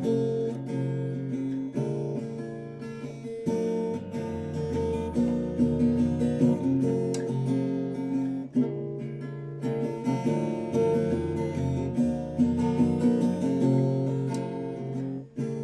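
Acoustic guitar strumming chords in an instrumental break of a song, with no singing.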